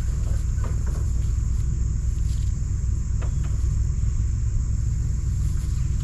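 Steady low rumble of a pickup truck's engine idling while it runs its onboard generator, with a high, steady insect buzz behind it.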